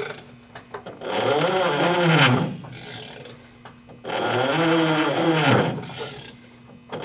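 Garrett TFE731-4 turbofan being turned over by hand, giving a loud mechanical noise whose pitch rises and falls with each stroke, in strokes every couple of seconds with short rasps between them. The noise is the sign of a faulty fuel control, where it was later traced.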